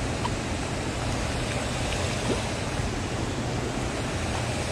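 Steady rushing noise of wind and moving water, with a low hum underneath.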